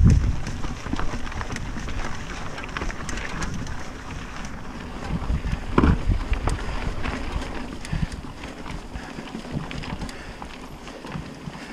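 Mountain bike descending a rocky, gravelly singletrack: tyres crunching over loose stones with many short knocks and rattles, and wind rushing over the microphone. Heavier thumps come at the start and about six seconds in.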